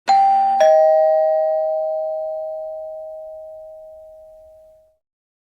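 A two-note ding-dong chime: a higher note, then a lower one about half a second later, both ringing out and fading away over about four seconds.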